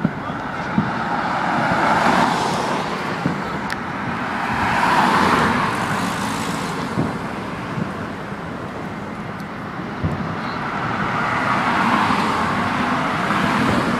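Road traffic noise: a steady rush of tyres and engines, swelling three times, about two, five and twelve seconds in, as vehicles go by.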